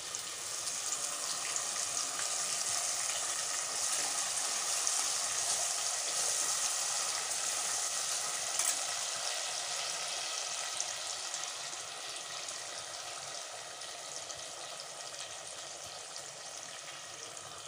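Green masala paste of ground chillies, coriander and yogurt poured into hot oil and sizzling hard, with a spoon stirring it through the pan. The sizzle swells over the first couple of seconds, then slowly dies down through the second half.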